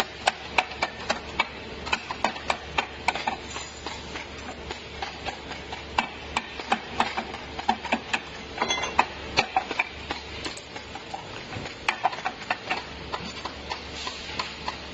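Rapid, irregular clicks and light knocks of aluminium flat tubes and fins being handled and tapped into a condenser core assembly jig, over a steady low machine hum.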